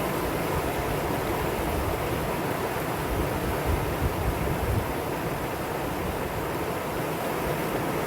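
Mountain stream water rushing over rocks in a steady, even wash, with a few low gusts of rumble about halfway through.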